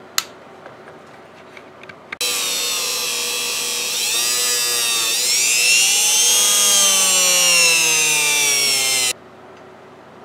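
Handheld rotary tool running as it polishes the copper of a homemade circuit board: a high motor whine that switches on about two seconds in, dips in pitch, then rises and slowly falls, and cuts off abruptly near the end.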